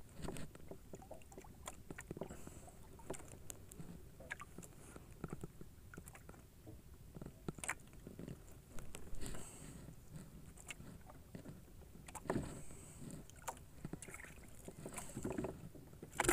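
Quiet sounds aboard a small wooden fishing boat: scattered light knocks and clicks from handling gear, over a faint wash of water.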